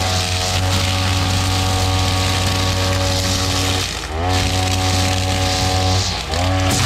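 Backpack brush cutter with a flexible drive shaft, running at high speed while it cuts. Its engine speed sags briefly and climbs back about four seconds in, and again near the end.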